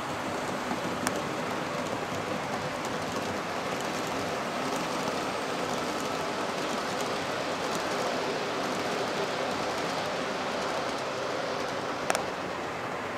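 Model trains running on a layout: a steady rolling noise from the wheels and motors of model class 141/181 diesel locomotives and their coaches and wagons on the track, with a few sharp clicks, the loudest near the end.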